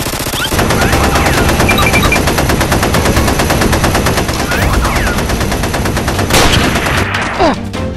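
Rapid automatic gunfire sound effects dubbed over Nerf blaster fire: a dense, continuous stream of shots with one louder shot about six and a half seconds in, thinning out near the end.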